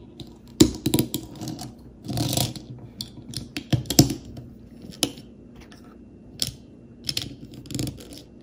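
Plastic Lego bricks clicking as they are pressed together and handled: a series of irregular sharp clicks, with a brief rustling scrape about two seconds in.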